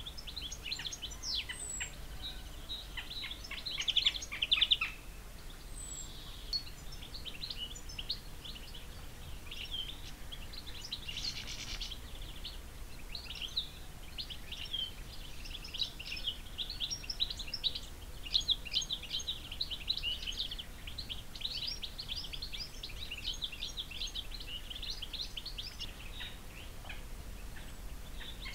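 Small birds chirping and twittering in quick runs of short, high calls, loudest about four seconds in, over a faint low background rumble.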